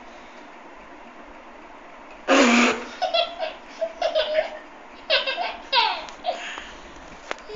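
Baby laughing in bursts of belly laughs and giggles as a man's foot presses on its belly, starting with a loud first burst about two seconds in.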